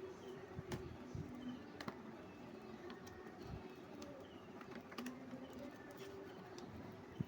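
Faint handling noises: scattered light clicks and soft rustling, with the sharpest click near the end.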